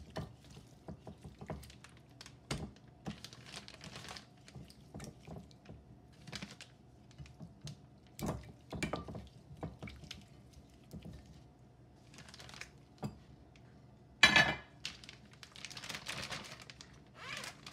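Gloved hands working raw chicken pieces in oily spice marinade in a glass dish, with scattered clicks and knocks against the glass. A sharp knock about 14 s in, then a plastic zip-top bag rustles as the chicken goes into it.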